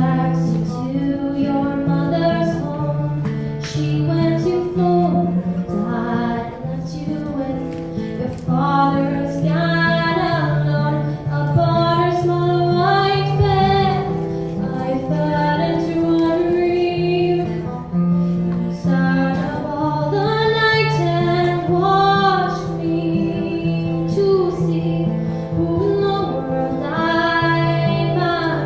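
A young woman singing a slow song, accompanying herself on acoustic guitar, performed live.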